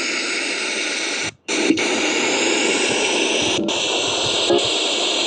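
Spirit box (a radio sweeping rapidly through stations) putting out loud, steady static hiss that cuts out briefly about a second and a half in. Tiny snatches of broadcast sound flicker through the hiss.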